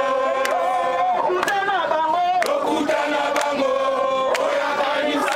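A group of voices chanting together in unison, holding long notes, with a sharp beat about once a second.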